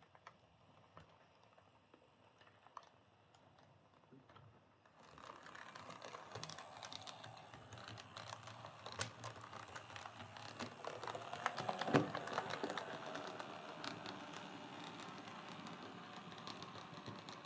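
Oxford Rail Class 415 Adams Radial OO gauge model tank engine running along its track after a gearbox service, a dense rapid clicking and rattling over a low motor hum. The running starts about five seconds in, after a few faint clicks, and there is one sharper click partway through.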